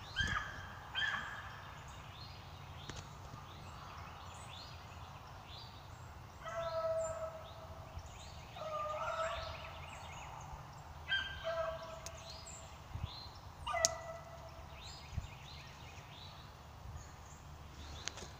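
Beagles baying faintly as they run a rabbit's scent trail: about half a dozen short, pitched bays, spaced a few seconds apart.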